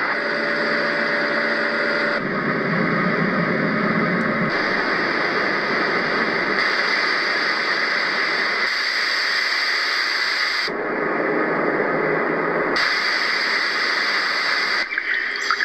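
A Roffie N600 white noise machine stepping through its noise sounds. Each steady hiss lasts about two seconds before it switches abruptly to another with a different tone. Near the end it changes to a sound with chirps.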